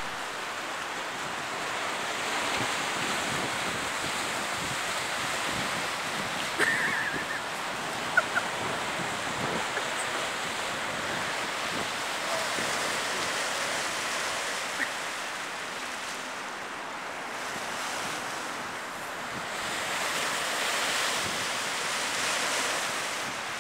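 Sea surf breaking and washing up a concrete slipway, with wind buffeting the microphone. The wash swells and eases in slow surges, and a brief high chirp and a couple of sharp clicks come about seven to eight seconds in.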